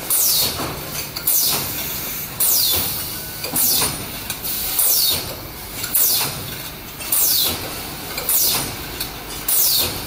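Stainless-steel bottle dividing machine cycling steadily about once every 1.2 seconds, each cycle a sudden hiss that sweeps down in pitch, over a steady mechanical running noise.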